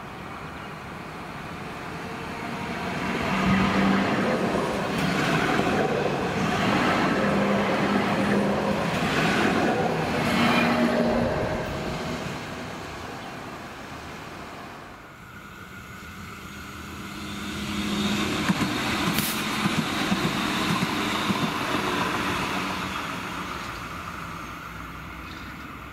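Electric light-rail trams passing, twice. The first pulls past with wheel-and-rail rumble and a stepping electric motor hum that swells and fades. About fifteen seconds in the second train approaches and runs by with a run of sharp clicks.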